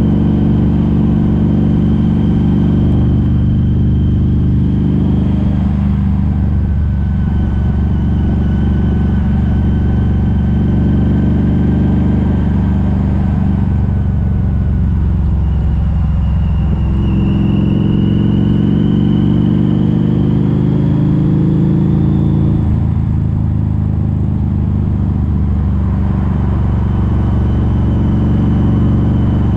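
Harley-Davidson V-Rod Muscle's liquid-cooled Revolution V-twin running hard through Vance & Hines Competition Series slip-on mufflers with the catalytic converters removed, the bike riding at speed. The engine note shifts in pitch several times as the throttle and gears change, with a faint whine rising for a few seconds past the middle.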